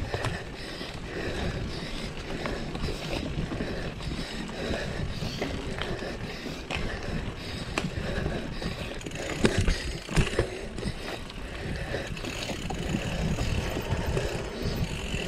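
Mountain bike being ridden over rough trail: a steady rolling noise with scattered rattles and knocks from the bike over bumps. A few sharper knocks come close together about ten seconds in.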